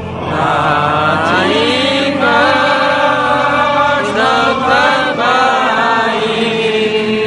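A crowd of men singing together in unison, a slow chant with long held notes that slide between pitches.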